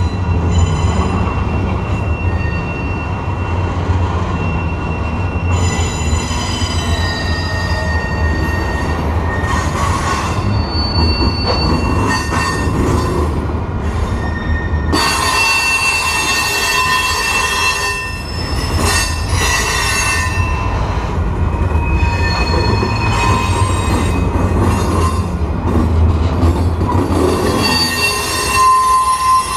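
Freight train's loaded flatcars rolling past close by: a steady low rumble of wheels on rail, with high-pitched wheel squeal in several tones that comes and goes, loudest from about halfway through and again near the end.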